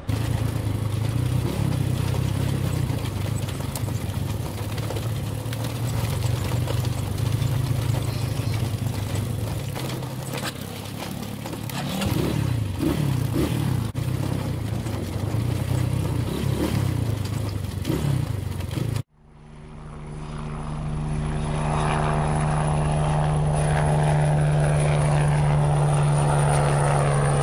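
Motorbike engines running and revving on a dirt road, their pitch rising and falling, mixed with rough noise. About two-thirds of the way in there is an abrupt cut to the steady hum and high whine of a camera drone's propellers.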